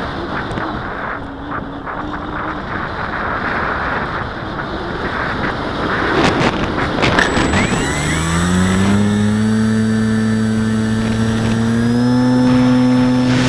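Wind noise on the microphone with a few sharp clicks, then a Parkzone Radian's electric motor and propeller spinning up about eight seconds in: a rising whine that settles into a steady hum and steps up a little in pitch near the end.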